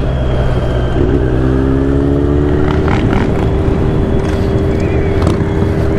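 Kawasaki Z900's inline-four engine through a Mivv Suono aftermarket exhaust, running steadily and then accelerating about a second in, its pitch rising and then holding steady, over a constant rush of wind noise.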